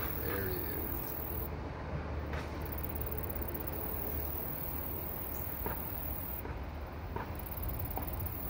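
High-pitched insect buzzing that cuts in and out every few seconds, over a steady low rumble.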